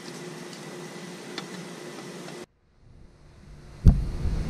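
Steady background hiss with a low, even hum that cuts off abruptly about halfway through, as at an edit. After a moment of near quiet, a single sharp knock near the end, then a louder low rumble.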